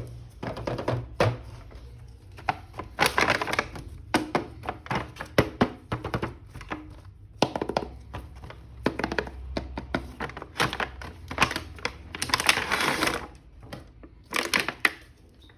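Hands opening and handling a toy action figure's plastic packaging: crackling, crinkling plastic with many quick clicks and taps.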